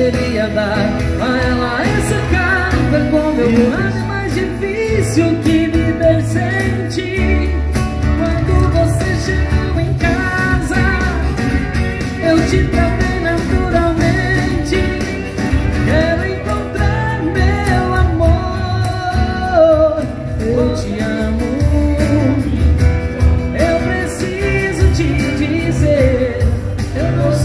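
A sertanejo song: a man's voice singing over an acoustic guitar, with deep bass notes underneath.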